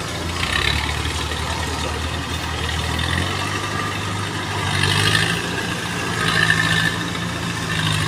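Rice combine harvester's engine running steadily under load, its note shifting about three seconds in.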